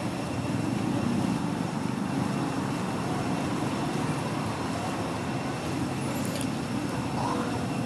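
Steady low rumble of motor traffic in the background, even throughout, with a faint steady high tone above it.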